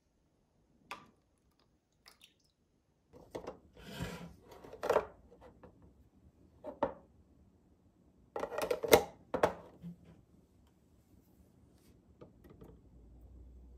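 Plastic parts of a cheese maker (yogurt strainer) and a glass cup being handled on a table: scattered knocks, clicks and rubbing as the containers are pulled apart and set down. The loudest cluster of knocks comes a little past the middle.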